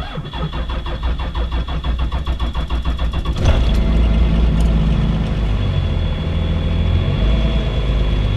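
1997 Dodge Ram's 5.9 L Cummins 12-valve inline-six diesel cranking on the starter in a steady rhythm for about three and a half seconds, then catching and settling into a steady idle. A cold start at about 28 degrees, on a block-heated engine.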